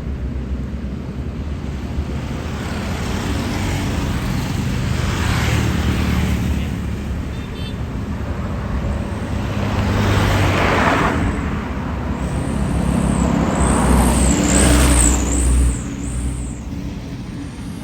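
Large tour bus diesel engines running close by, the engine noise swelling several times and loudest in the last third. A high warbling whistle wavers up and down over it for a few seconds near the end.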